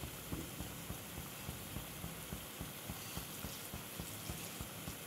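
Pea masala gravy in a pan coming up to the boil: soft, irregular bubbling pops, a few each second, over a faint steady hiss.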